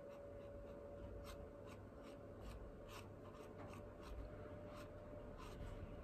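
Paintbrush dabbing and brushing paint onto a painted surface: a scatter of faint, soft scratchy strokes.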